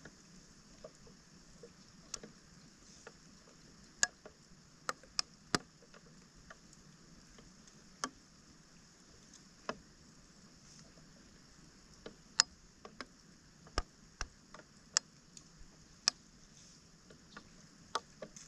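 Scattered sharp clicks and knocks as debris is worked out of a clogged roadside storm drain, irregular, sometimes two or three within a second, over a faint steady hiss.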